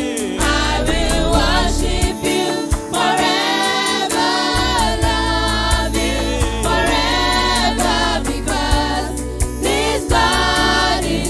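Gospel worship song: voices singing sustained, wavering phrases over a band with a steady bass line and regular percussion hits.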